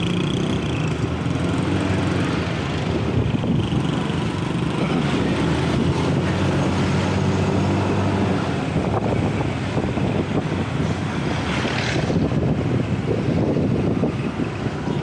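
Motorcycle engine running steadily while riding along a street, with wind rushing over the microphone.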